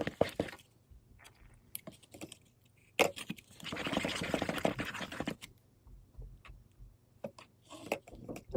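Slime being stirred in a bowl as the activator is worked in: scattered clicks and scraping of the utensil against the bowl, with a busier stretch of mixing in the middle.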